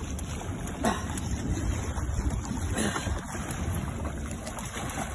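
Wind buffeting the microphone over water sloshing against a small boat's hull, with a person's voice briefly calling out twice, falling in pitch, about one and three seconds in.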